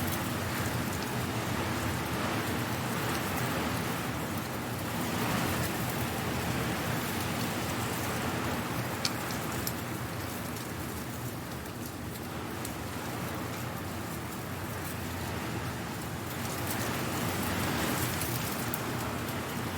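Strong wind blowing through dry leaves, rising and falling in slow gusts, with a steady rustle and scattered crackling ticks. One tick stands out about nine seconds in.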